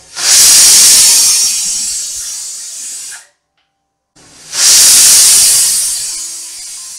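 Pressure cooker whistle letting off steam twice: each time a loud hissing blast that slowly fades. This is the cooker reaching full pressure with the rice cooking on high flame.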